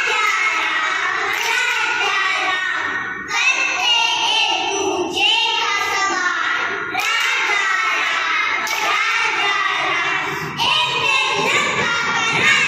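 Young kindergarten children singing an action song together, with short breaks between phrases about three seconds in and again near the end.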